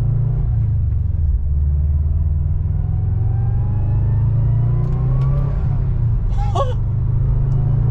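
Turbocharged flat-four of a 2011 Subaru WRX pulling under part throttle, its pitch rising for a couple of seconds; then the throttle lifts and the aftermarket Turbosmart plumb-back bypass valve lets the boost go with a short, high "chew" about six and a half seconds in.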